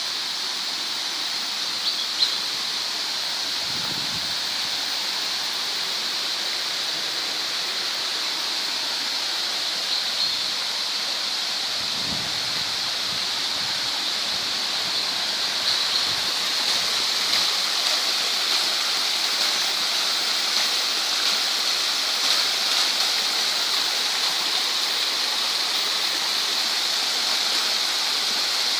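Waterfall: water pouring and splashing, a steady rushing hiss that grows a little louder about halfway through.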